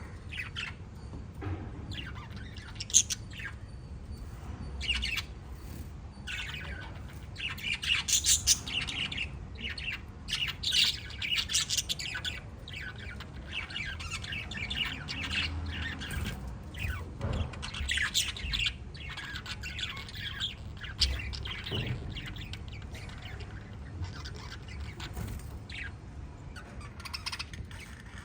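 Pet lovebirds chattering: many quick, shrill chirps and squawks from several birds at once, busiest in the middle, over a low steady hum.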